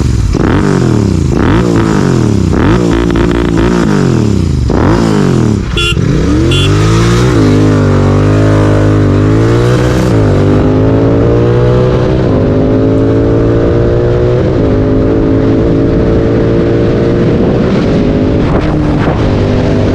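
Royal Enfield Continental GT 650 parallel-twin engine through a Red Rooster aftermarket exhaust, heard loud from onboard. It is revved up and down over and over for the first few seconds, then pulls with a slowly rising pitch that dips briefly a couple of times.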